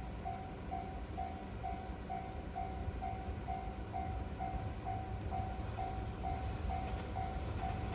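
Japanese railway level crossing's electronic warning bell ringing steadily, about two rings a second, signalling that a train is coming. Under it a low rumble grows a little louder near the end as the train approaches.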